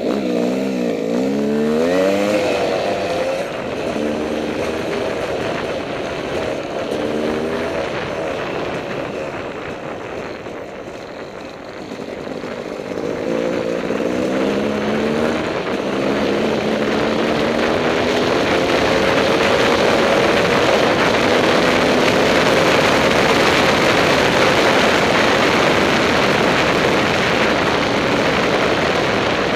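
Dirt bike engine revving up and down through the gears in short rising runs, easing off briefly about a third of the way in, then holding a long steady high-rev run through the second half, with wind rushing over the microphone.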